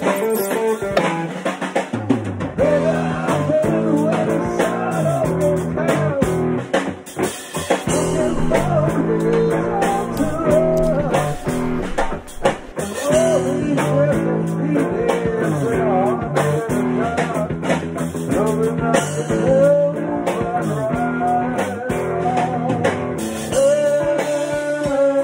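A live rock band playing a song: electric guitar, drum kit and a lead singer. The guitar plays alone at first, and the drums and full band come in about two seconds in.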